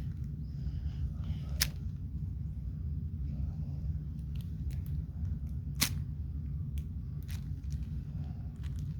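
Plastic puzzle cube being turned by hand: scattered sharp clicks of the layers snapping into place, two louder snaps about 1.5 s and 6 s in, over a steady low rumble.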